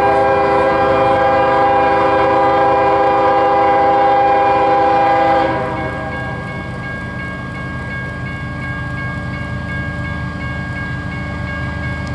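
Approaching Union Pacific freight train's locomotive air horn sounding one long multi-chime blast that cuts off about five and a half seconds in. After it, the low rumble of the diesel locomotives drawing near carries on.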